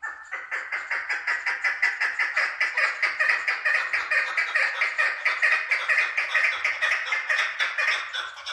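Chukar partridge calling: a fast, unbroken run of harsh clucking notes, about seven a second.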